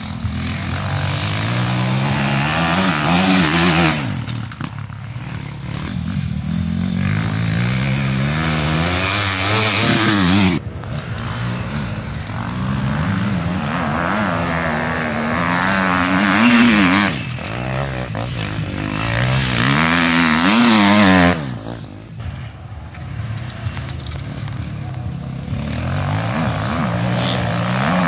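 Enduro dirt bike engines revving hard, in several surges of rising pitch that each drop away sharply as the throttle shuts or the gear changes.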